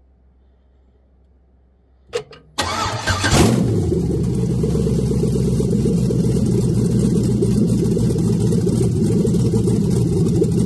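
Swapped-in GM 6.2-litre V8 in a box Chevy being started: a couple of short clicks about two seconds in, then brief cranking, the engine catching with a rev flare and settling into a steady idle.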